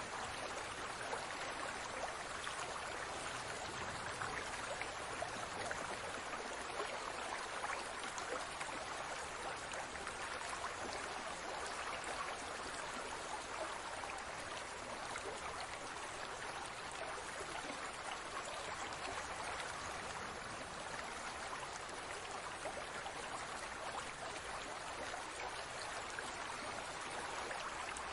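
Aquarium water bubbling and trickling steadily, a constant stream of small bubbles with no pauses.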